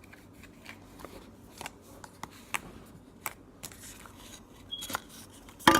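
Slime being handled by hand, giving small irregular clicks and crackles, with a louder click near the end.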